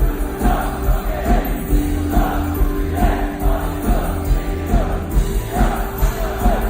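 Live K-pop concert music heard from the audience: a girl group singing over a backing track through the venue's speakers, with a steady pulsing beat.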